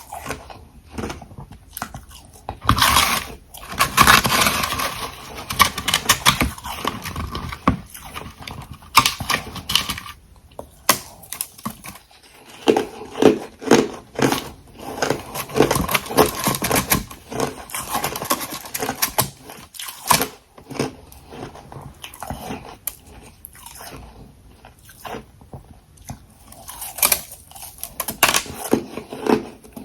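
Close-miked biting and chewing of hard refrozen ice, a run of sharp irregular crunches that come thickest a few seconds in and again near the end.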